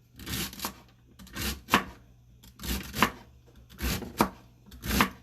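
Knife chopping vegetables on a cutting board: a slow, uneven series of chops, often two close together, with short pauses between.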